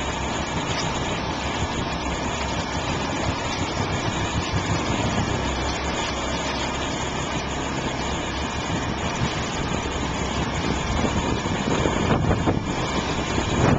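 Motorboat engine running steadily, an even noise without breaks.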